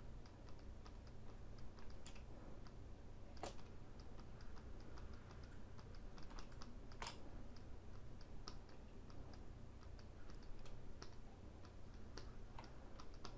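Faint, irregular clicking and tapping from a computer keyboard and mouse, with a few louder clicks scattered through.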